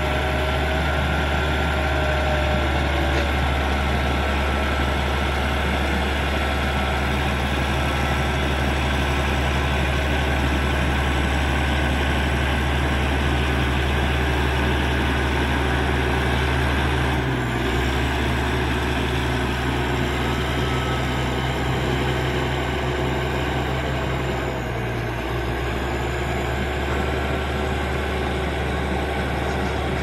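Caterpillar D6G crawler bulldozer's diesel engine running steadily as it pushes wet soil with its blade, a deep low hum over an even mechanical noise. The engine note shifts briefly about halfway through and again near three quarters of the way.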